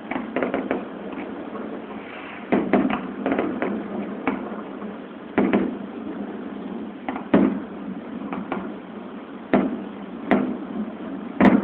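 Fireworks shells bursting at a distance: about a dozen sharp bangs at irregular intervals, some in quick pairs, each trailing off in a short echo.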